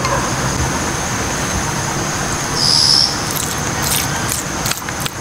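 A wooden spoon stirring and tapping in a small stainless-steel camping cup, with several light clicks in the second half as seasoning is added. Under it runs a steady outdoor hiss with a constant high-pitched tone, and a brief higher tone sounds about two and a half seconds in.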